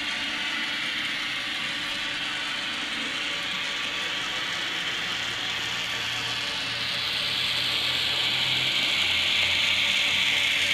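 Roco N-scale BR101 model electric locomotive running with its ESU sound decoder on: a steady hissing, gear-like mechanical running sound from the model, growing louder from about seven seconds in as it comes closer.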